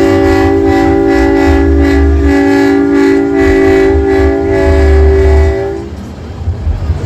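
A show truck's train-style air horn sounding a long, loud, steady multi-note chord that cuts off about six seconds in, with deep bass pulses underneath.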